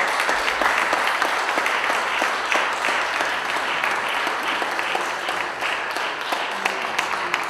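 Audience applauding: a steady round of clapping that begins at once and starts to die down near the end.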